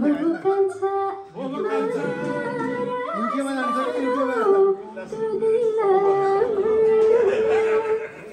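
Singing: a voice carrying a melody in long held notes that bend and waver, with a short break about a second in.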